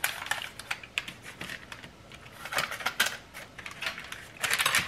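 Oiled hands rubbing and turning raw chicken breasts on parchment paper on a baking sheet: a run of small irregular clicks and paper crinkles, busiest near the end.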